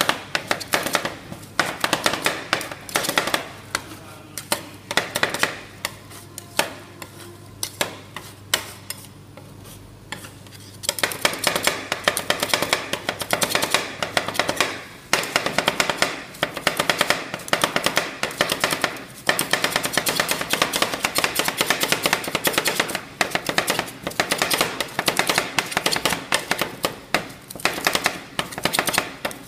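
Two metal spatulas chopping and tapping ice cream mixture on a stainless steel cold plate: a fast, dense clatter of sharp metal clicks, softer for several seconds near the middle and then dense again.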